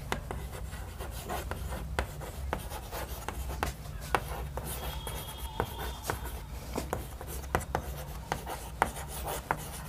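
Chalk writing on a chalkboard: irregular taps and scratches of the chalk stick as words are written, several strokes a second, over a faint low hum.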